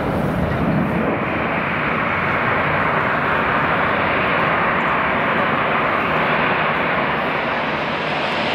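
Boeing 737-300's CFM56 turbofan engines running at taxi power: a steady jet engine rush, with a deeper low rumble that fades out in the first second.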